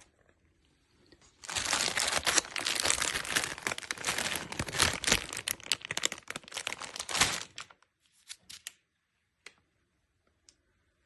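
Packaging material crinkling and crumpling as it is handled, for about six seconds, followed by a few light clicks.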